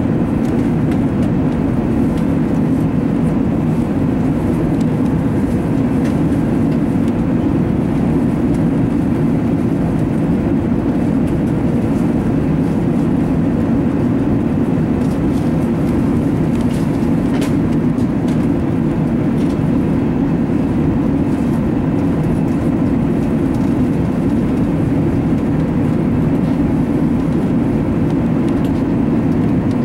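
Steady roar inside the cabin of an Airbus A380 climbing after takeoff: engine and airflow noise heard through the fuselage, deep and even, with no change in pitch or level.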